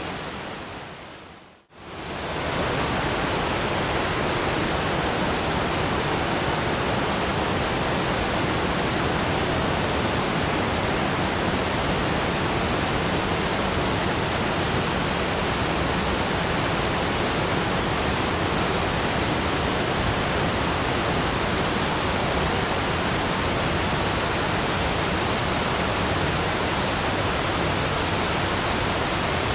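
Steady, even rushing of a waterfall. It fades out to near silence about a second in and swells back within a second, then runs on unchanged.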